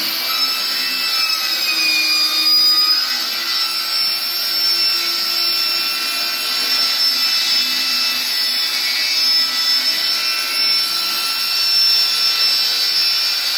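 Circular saw running steadily, plunge-cutting a plywood boat panel with the blade set just below the surface, a loud, steady high-pitched whine throughout.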